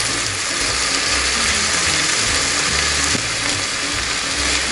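Pork and vegetables for gochu japchae sizzling in a frying pan as they are tossed with a wooden spatula, with a steady hiss of steam from a pressure cooker on the stove mixed in.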